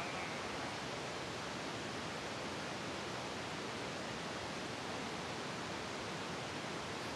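Steady, even hiss with no other distinct sound.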